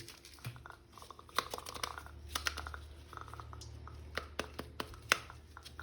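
Small scattered clicks and taps of a plastic action figure and its parts being handled, with faint crinkling, over a low steady hum.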